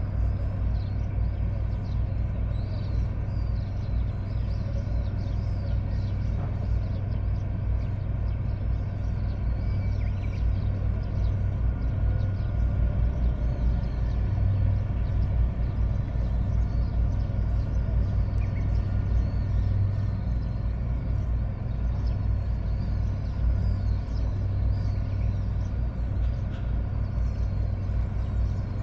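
Boat engine running steadily with a low, even hum. Faint bird chirps sound above it.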